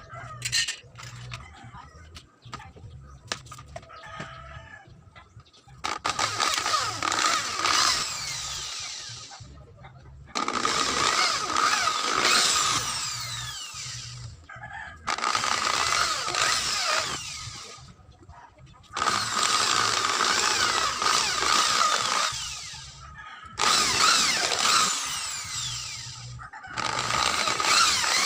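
Handheld electric power tool running in repeated bursts of two to four seconds, each starting abruptly and trailing off, with a steady motor whine. The bursts begin about six seconds in, after a few seconds of scattered clicks and knocks.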